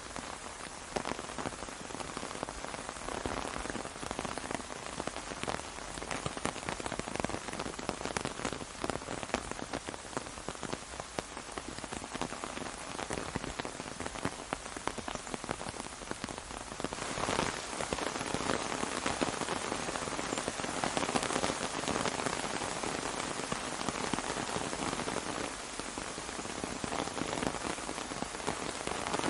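Rain falling on an umbrella overhead: a dense, steady hiss of many small drop impacts. It grows heavier about two-thirds of the way through.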